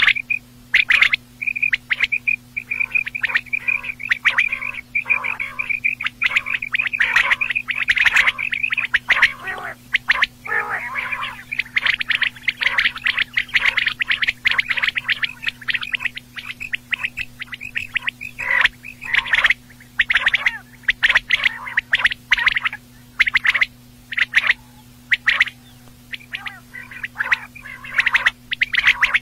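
Quail calling in quick, short, repeated notes. The calls crowd together into a dense run about a third of the way in, then thin out to spaced single notes and small clusters. A faint low hum runs underneath.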